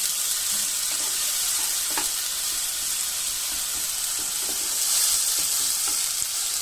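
Onions and ginger-garlic-tomato paste sizzling steadily in hot oil in a non-stick karahi, stirred with a wooden spatula that scrapes the pan now and then.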